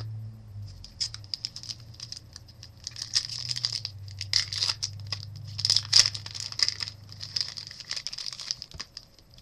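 Foil wrapper of a trading-card pack being torn open and crinkled by hand as the cards are pulled out, in a dense run of irregular crackles that grows busier through the middle and fades near the end.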